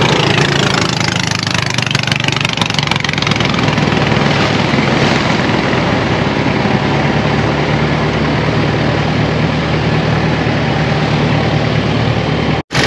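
A boat's engine running steadily under way, with water rushing along the hull. The sound drops out sharply for a moment near the end.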